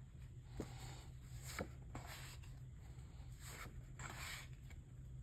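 Faint rustling and scraping of album photocards and paper inserts being handled, as several short swishes with a few soft ticks.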